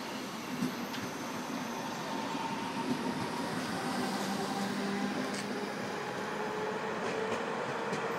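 DB Class 425 electric multiple unit pulling away, its traction motors whining in several tones that rise slowly in pitch as it gathers speed, over the steady rush of wheels on rail.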